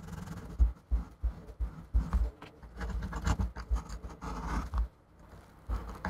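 Irregular scraping and rubbing with light knocks and taps as fingers pick and rub sticky adhesive residue off the inside of an opened iMac's housing.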